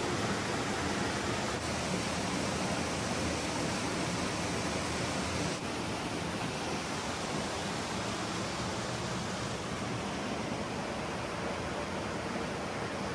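Steady rush of flowing stream water, dipping slightly in level about five and a half seconds in.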